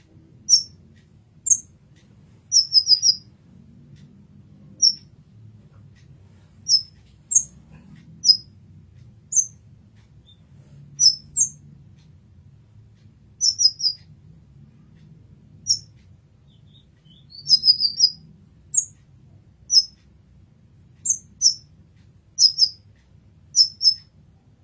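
Kolibri ninja sunbird calling: short, high, sharp chirps, singly or in quick runs of two to four, every second or so, over a faint low hum.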